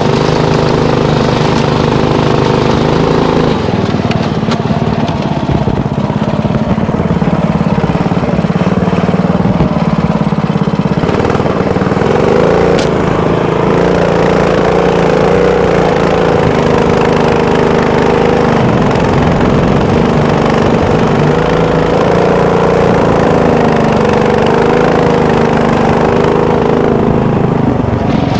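Small vehicle engine running continuously under way across sand, its pitch shifting up and down with the throttle.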